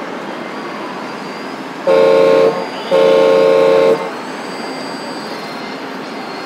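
A model truck's air horn from an RC sound module sounds twice, a short blast and then a longer one, each a steady chord of two notes. A constant hum of hall noise runs underneath.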